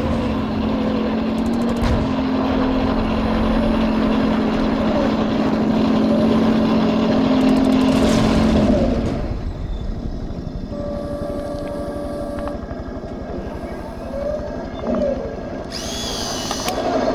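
Heng Long RC Leopard 2A6 model tank running, its engine sound steady and louder for about the first nine seconds, then settling quieter.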